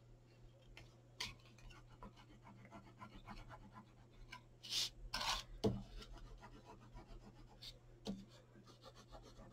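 Faint scratching and rubbing of a Tombow liquid glue bottle's sponge tip dabbed along black cardstock flaps. Two louder paper swishes about five seconds in, and soft knocks shortly after and near the end.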